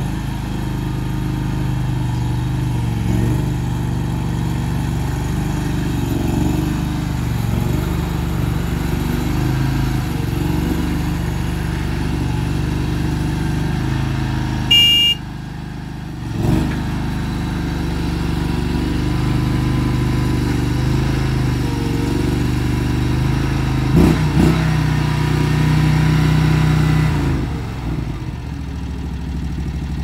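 Engine of a tracked stand-on mini skid steer loader running as it is driven and its bucket worked, the note shifting up and down as the load changes. A short high beep sounds about halfway through, and the engine drops back to a lower, steadier run near the end.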